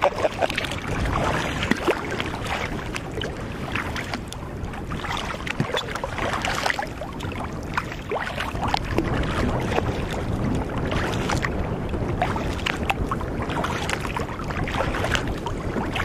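Water splashing and slapping against a kayak's hull as it moves through choppy, wind-ruffled water, in irregular short splashes over a steady wash of noise.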